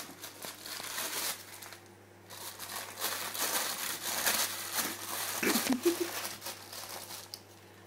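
Baking paper crinkling and rustling as a dog chews and tugs at it, in irregular bursts with a short lull about two seconds in.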